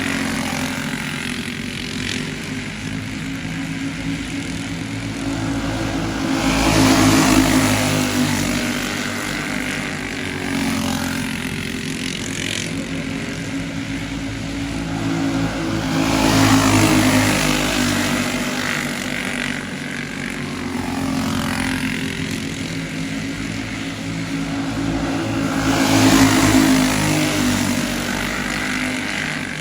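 Racing go-karts with Briggs & Stratton Animal single-cylinder four-stroke engines running laps. Their engine note stays steady, and the pack swells loudly past about every ten seconds, three times, then fades away again.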